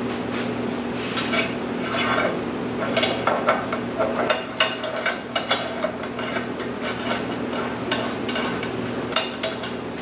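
Steel pin and tubular steel spacer being worked into a welded steel linkage mount: irregular metal clinks, taps and scraping as the parts are slid and seated by hand.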